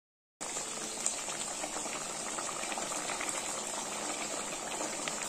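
Chicken in a green masala and water boiling in a pot: a steady bubbling with many small pops, starting abruptly about half a second in.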